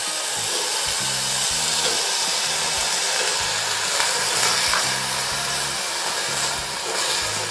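Chopped onion and potato sizzling in ghee in a small pressure cooker, stirred and scraped with a wooden spatula.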